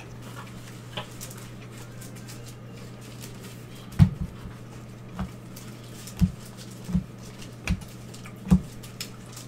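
A stack of trading cards handled by gloved hands as they are flipped through one at a time. Light flicks and clicks, then a series of short dull knocks from about 4 seconds in, over a steady low hum.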